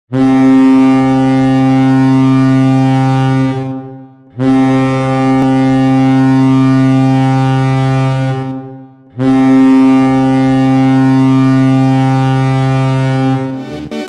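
Chippewa Steel's ice hockey goal horn sounding three long blasts of about four seconds each, a deep steady horn tone with many overtones and short breaks between blasts.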